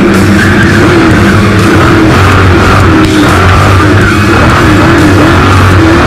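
Off-road race car engine revving up and down as it drives flat out on a dirt road, mixed with loud music.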